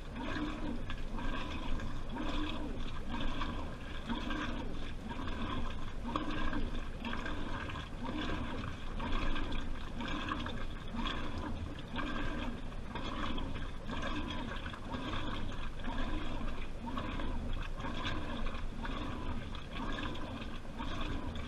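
Washing machine drum turning with water and laundry sloshing inside it, heard from within the drum, in a steady repeating surge a little faster than once a second.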